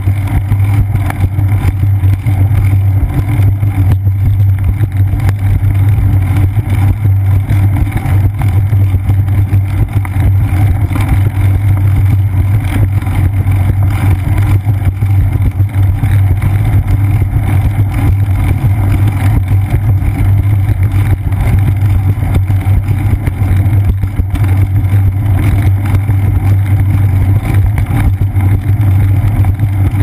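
Steady, loud low rumble of wind buffeting and road vibration picked up by a seat-post-mounted GoPro Hero 2 while a bicycle rolls along a concrete path.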